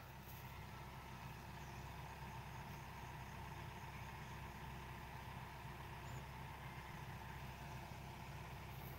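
Faint, steady running of a distant hydraulic excavator's diesel engine.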